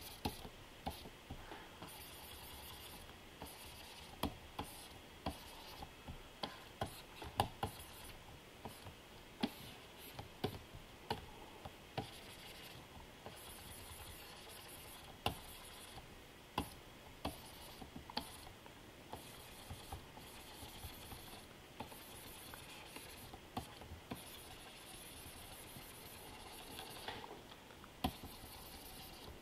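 Pen stylus tapping and stroking on the glass screen of a Wacom Cintiq 27 QHD Touch pen display as brush strokes are painted: faint, irregular taps, sometimes a couple a second, over light scratching.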